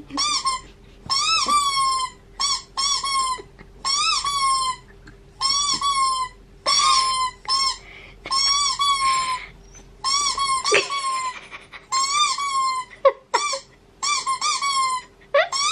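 Small Jack Russell terrier-type dog whining in a long string of short, high-pitched whines, over a dozen in a row, each rising and then falling in pitch.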